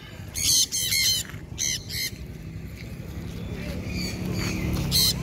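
Conures in flight screeching: harsh, loud calls in short bursts, about three in the first two seconds and another near the end. A low steady hum grows louder behind them in the second half.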